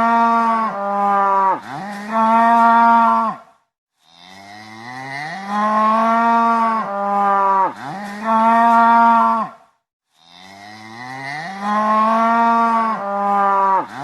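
Cow mooing: one long, loud moo repeated about every six seconds, the same call each time. Each moo rises in pitch at the start, then holds steady, broken twice by short dips.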